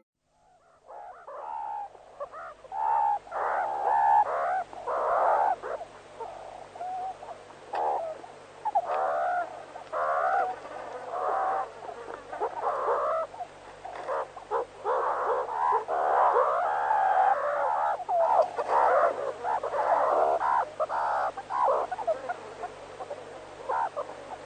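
Animal calls: many short, wavering calls in quick succession, sometimes overlapping.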